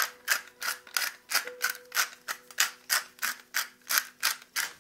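Hand-held spice mill grinding in quick, even twists, about three crunchy strokes a second, seasoning raw meat.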